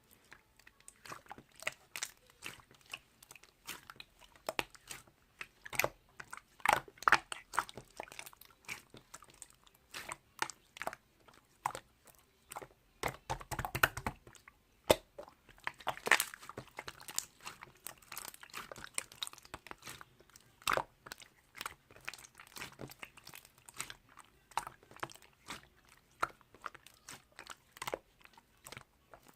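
Slime being squeezed, stretched and poked by hand, giving an irregular stream of small crackling clicks and pops, with louder squelching clusters about a quarter of the way in and around the middle.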